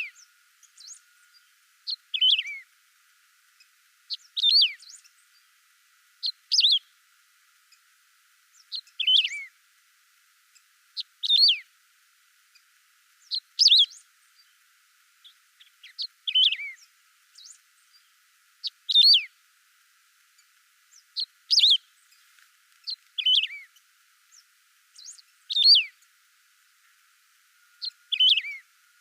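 A canário-do-campo (wedge-tailed grass-finch) singing: about a dozen short, clear phrases, one every two and a half seconds or so, each a quick high note that drops in pitch.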